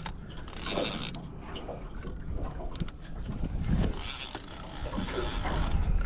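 Fishing reel ticking and whirring in irregular bursts as a hooked fish is fought, over a low rumble of wind on the microphone.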